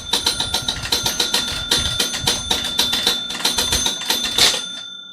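1957 Gottlieb Ace High electromechanical pinball machine clattering: rapid runs of relay and score-reel clicks with bell rings, over a steady electrical buzz. The clicking stops with a louder final clack about four and a half seconds in.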